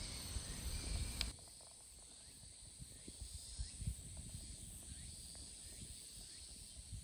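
Faint outdoor nature ambience. A low wind rumble on the microphone lasts about the first second, then cuts to quiet, with a steady faint high hum and scattered faint short chirps.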